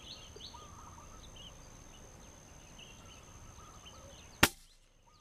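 Small birds chirping over a steady high whine, then a single sharp rifle shot about four and a half seconds in, the loudest sound by far, fired through a telescopic sight at a bird in a treetop.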